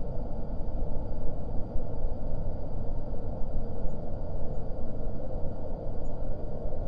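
Dungeon air ambience sound effect: a steady, low rumble of air, with no distinct events.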